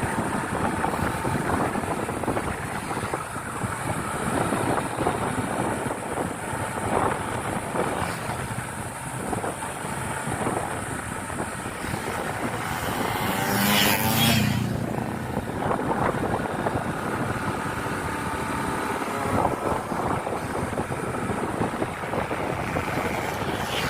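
Road traffic noise from vehicles on the move, with one vehicle passing close by about fourteen seconds in.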